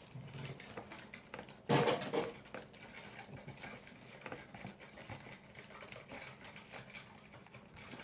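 Spoon and plastic containers being handled during slime-making, giving light irregular clicking, tapping and scraping, with one louder knock or clatter about two seconds in.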